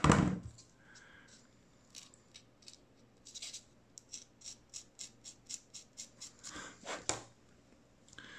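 Small model kit parts being handled and worked in the fingers: a quick run of light scratching strokes, about four a second, through the middle, with two louder scrapes a little before the end. A short burst of rustling noise at the very start.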